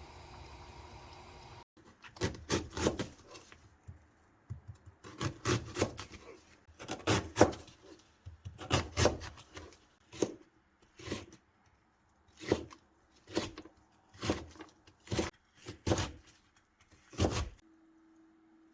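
Blade strokes scraping and cutting through a raw Korean radish: uneven clusters of strokes at first, then single strokes about once a second, stopping near the end.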